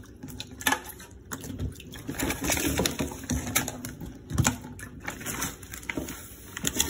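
Frozen crab legs being handled in a plastic container in a stainless steel sink: irregular clicks and clatters of shell against plastic, over light running water from the tap.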